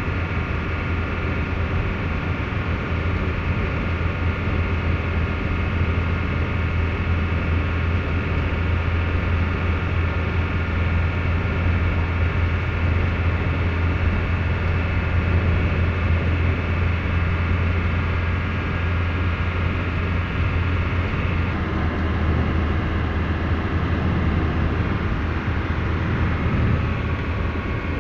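Steady drone of a vehicle driving at highway speed, heard from inside the cab: a strong low engine hum under road and tyre noise. The engine note shifts slightly about three-quarters of the way through.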